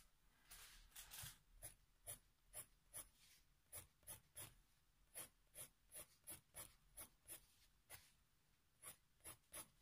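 Faber-Castell Polychromos coloured pencil hatching on paper: faint quick scratchy strokes, two or three a second.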